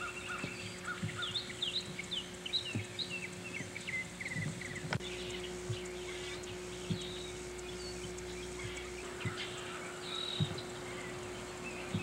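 Small birds chirping, a quick run of short high calls for the first few seconds, then sparser. Under them are soft thuds of footsteps on the road and a steady faint hum.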